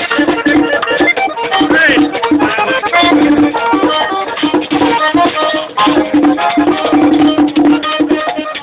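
Live button accordion playing a quick melody over steady percussion.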